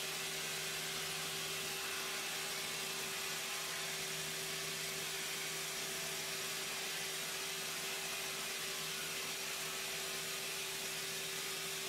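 Steady machine hum with a constant hiss, unchanging in level, with two steady tones held throughout.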